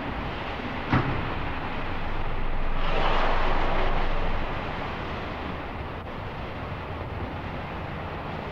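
Steady background noise of an analogue field tape, hiss with a low hum underneath. A single click comes about a second in, and a swell of rushing noise rises and fades around three to four seconds in.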